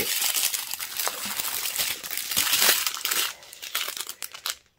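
Small clear plastic bags of square diamond-painting drills crinkling as they are handled and sorted. The crinkling is dense at first, then thins to a few scattered crackles after about three seconds.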